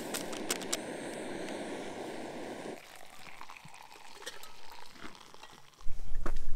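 A BRS canister stove's burner hisses steadily while a few light clinks sound at the mug. The hiss cuts off suddenly, and hot water is poured from a camp pot into an insulated mug. Near the end a loud rumble of wind on the microphone takes over.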